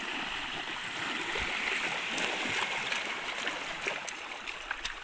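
Shallow muddy water rushing and splashing as a bamboo-framed push net is shoved through it, with a few small ticks near the end.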